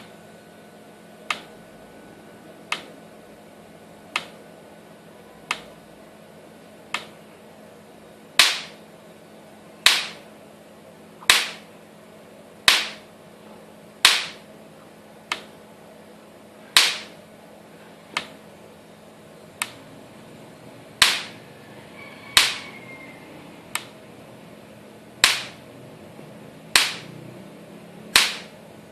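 Electric fence energizer firing its pulses: a sharp snap about every second and a half, some much louder than others with a brief ring after each, over a faint steady hum.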